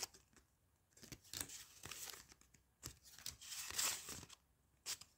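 Foil trading-card pack torn open and crinkled: faint scattered crackles, with a longer tear past the middle.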